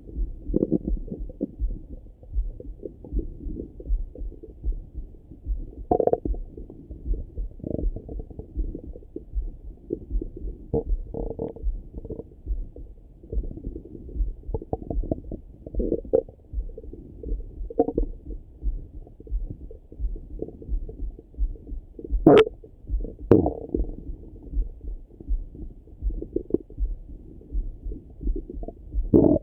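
Stomach and bowel gurgling heard through a Littmann stethoscope pressed to the belly: irregular, muffled rumbles and bubbling, with a faint regular pulse underneath. Two sharp knocks stand out about 22 and 23 seconds in.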